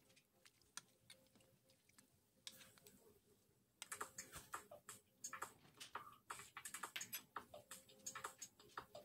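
Faint, irregular clicking and ticking: sparse at first, then denser from about halfway through.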